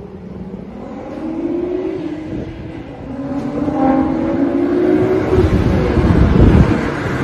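Nissan GT-R engine accelerating hard, its pitch climbing, dropping about two seconds in, then climbing again as it grows louder.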